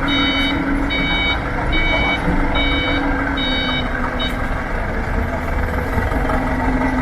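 Vehicle reversing alarm beeping steadily, about one beep a second, over a running engine; the beeping stops about four seconds in while the engine keeps running.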